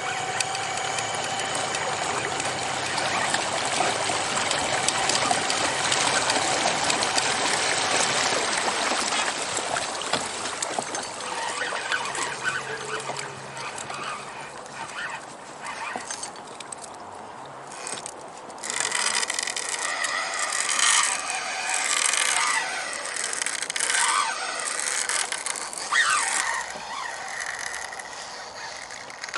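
Water rushing and splashing along a moving kayak's hull, steady for the first half. In the second half come irregular clicks and knocks from the fishing gear and boat.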